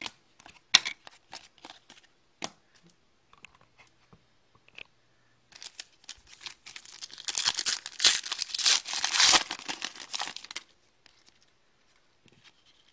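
Hockey card pack's wrapper being torn open by hand and crinkled, a dense crackling stretch of several seconds in the middle, after a few light clicks.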